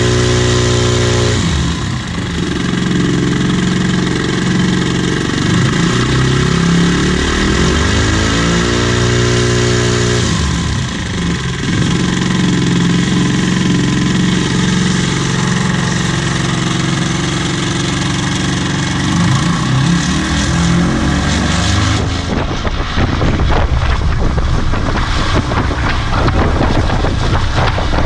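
A homemade paramotor's single-cylinder four-stroke engine runs hard under load, driving its propeller to produce ground thrust. Its exhaust is choked by a dB-killer baffle. The pitch shifts twice, once right at the start and again about ten seconds in, and over the last few seconds the sound turns rougher and choppier.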